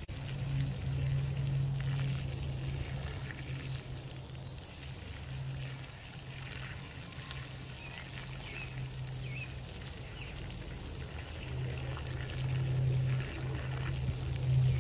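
Water running from the farm's water line and splashing onto dirt and mud in a steady trickle, with a low hum that comes and goes throughout.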